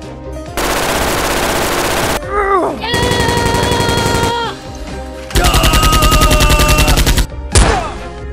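Automatic gunfire sound effects in three rapid bursts of fire, over background music.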